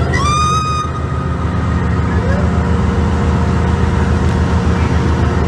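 A high-pitched call rises sharply and then holds steady for about a second, over a steady low mechanical hum. It is the unexplained call that the boater took for a siren or mermaid calling out to him.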